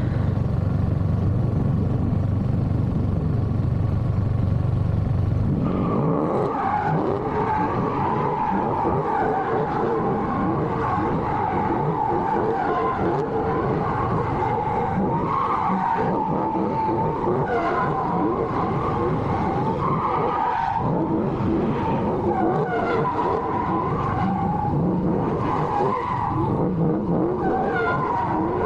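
Car tyres screeching in a long, continuous squeal whose pitch wavers up and down. For the first six seconds or so there is only a heavy low rumble, and then the squeal starts.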